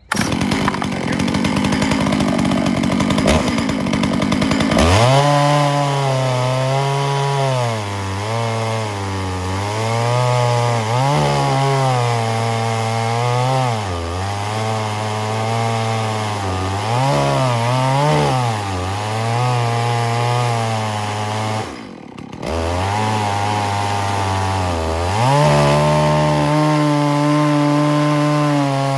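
Holzfforma G660 two-stroke chainsaw with a 36-inch bar and ripping chain, ripping a red oak log lengthwise in a chainsaw mill. It catches and runs roughly for about five seconds, then goes to full throttle into the cut. The engine pitch wavers up and down as it loads in the wood, dips briefly about two-thirds of the way through, then picks back up and runs steadier.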